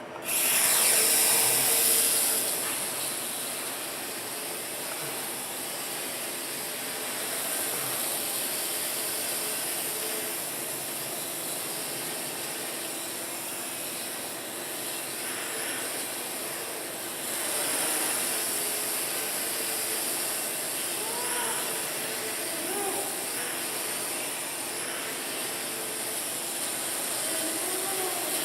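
Small quadcopter's motors and propellers whirring in flight, a high hiss-like whir that swells in the first couple of seconds and again about two-thirds of the way through as the throttle changes.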